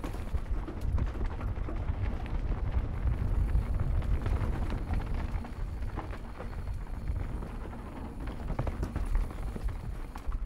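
Mountain bike rolling fast down a dirt singletrack: a steady low rumble of tyres and wind, with frequent clicks and rattles from the bike going over bumps.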